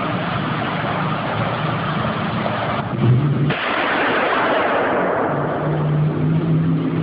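Hissy old 1970s film soundtrack of a single .22 rifle shot being fired at a man, with a sudden loud crack about three and a half seconds in. A low steady hum follows near the end.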